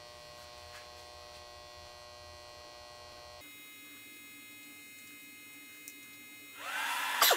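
Battery charger running with a steady electrical hum and whine made of several tones, which shifts about halfway through as the charging current rises to about 60 amps. Near the end a cooling fan spins up with a rising whine and gets louder, and a sharp click sounds just before the end.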